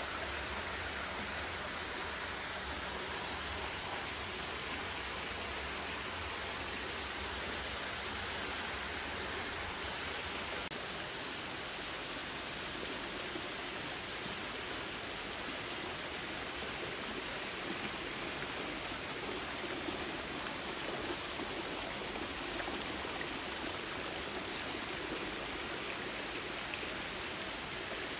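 Hot-spring water pouring and splashing from a small waterfall into an outdoor rock bath: a steady, continuous rush of falling water. The sound shifts slightly about eleven seconds in.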